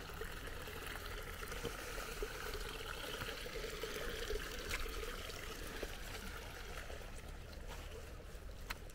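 Rainwater trickling steadily along a shallow earth swale channel.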